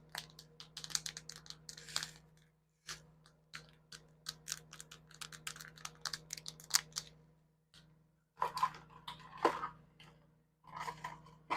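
Fingernails tapping in quick, irregular clicks, then a couple of short scratching sounds near the end.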